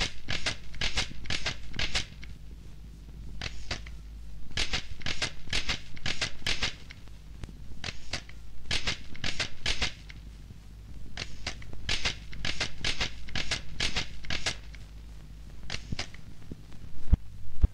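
Bursts of rapid mechanical clacking, several strokes at a time with short pauses between the runs, over a steady low hum. One louder knock comes near the end.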